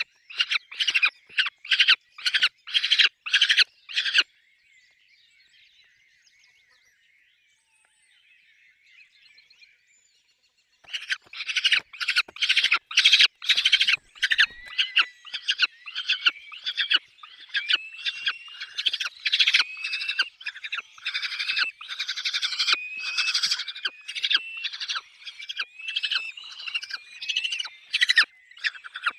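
Peregrine falcons calling at the nest: a fast series of loud, harsh repeated calls, a pause of several seconds, then the calls start again about eleven seconds in, joined by thin rising squealing notes.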